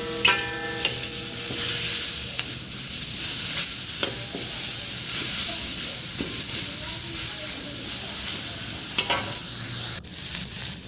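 Sliced onions sizzling in oil in a hot pan while a metal spatula stirs and scrapes them, with scattered clanks of the spatula on the pan. A ringing metallic clank sounds at the very start. The onions are being sautéed until wilted.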